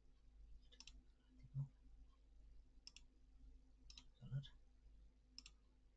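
Faint, sharp computer mouse clicks, four single clicks spread over a few seconds, with two brief low thuds, the loudest sounds, about a second and a half and four and a half seconds in.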